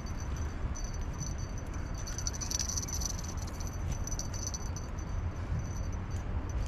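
Wind buffeting the microphone: a steady low rumble, with a faint high-pitched rattling over it from about a second in.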